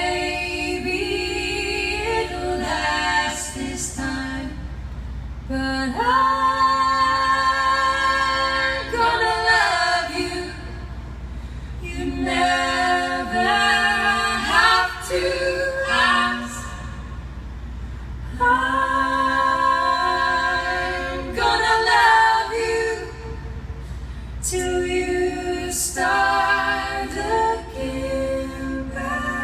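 Female voices singing a cappella in harmony: several voices hold long notes together in phrases of a few seconds, with short breaks between them.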